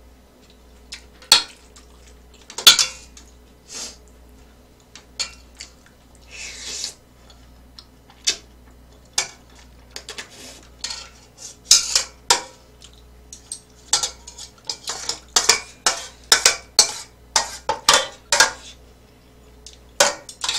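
Metal chopsticks and a spoon clinking and scraping against a stainless steel pan of noodles, in irregular sharp taps that come thick and fast in the second half.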